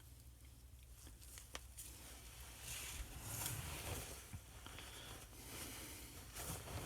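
Faint handling sounds of lubricating engine surfaces: a couple of light clicks about a second and a half in, then soft, irregular rubbing noises.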